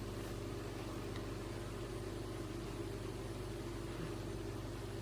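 PowerMac G5 running and booting, its cooling fans giving a steady whirring hum with several fixed low tones.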